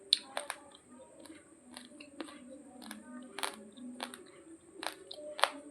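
Raw long-grain basmati rice grains crunched between the teeth: irregular sharp cracks, about two a second, with softer chewing between them.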